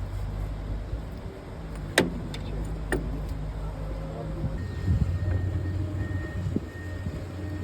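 An engine running steadily with a low hum, with two sharp metal knocks about a second apart.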